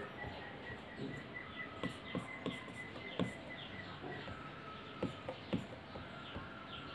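Apple Pencil tip tapping and stroking on the glass screen of an iPad Pro: irregular light ticks several times a second as lines are sketched. A faint steady high tone runs underneath, dropping to a lower pitch about four seconds in.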